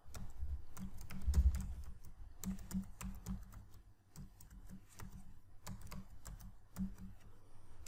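Computer keyboard being typed on in quick, irregular runs of keystrokes, with a short lull about four seconds in.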